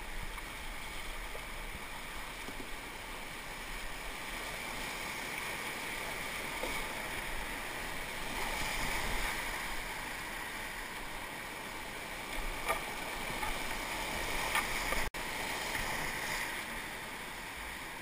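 Rushing whitewater of a boulder rapid heard from an open canoe, a steady churning noise that swells about halfway through, with a few short sharp splashes and a momentary break near the end.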